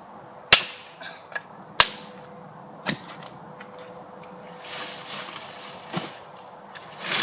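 Dead, dry sticks being snapped: a series of sharp cracks, the loudest about half a second and two seconds in, more near three and six seconds, with smaller crackles of breaking twigs between them.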